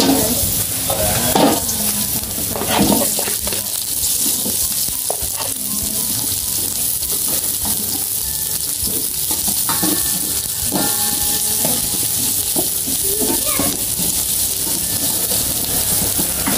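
Sliced red chillies, garlic and onions sizzling in hot oil in a steel wok, stirred with a spatula that scrapes and taps against the pan again and again.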